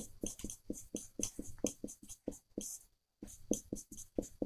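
Marker pen squeaking and scratching on a whiteboard in many short, quick strokes as an equation is written, with a brief pause about three seconds in.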